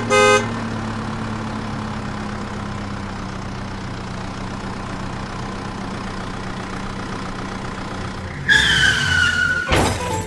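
Steady engine-idling sound effect under the toy truck. It opens with a short horn-like beep. Near the end comes a loud, high, slightly falling tone, then a crash as the plastic toy vehicles collide and tumble.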